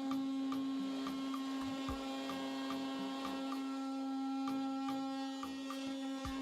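Milwaukee oscillating multi-tool running at a steady pitch, its blade cutting through foam-core waterproofing board.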